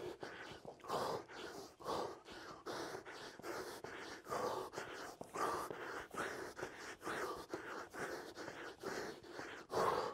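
A man breathing hard and fast from exertion during mountain climbers, short puffs of breath at about two a second.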